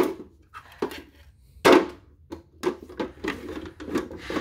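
Hollow plastic toy mountain pieces knocking and clicking as they are handled and set in place: a few irregular knocks, the loudest a little under two seconds in.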